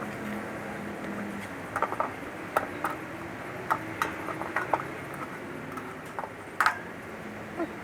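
Irregular light clicks and taps of hand tools and meter leads worked on an air conditioner's electrical parts during a capacitor and power check, over a steady low hum. A faint steady tone stops about a second and a half in.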